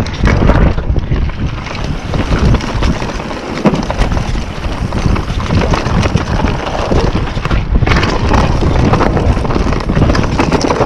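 Wind buffeting the GoPro's microphone on a fast mountain-bike descent of a dirt singletrack, mixed with the tyres rumbling over the ground and short knocks and rattles from the bike as it hits bumps.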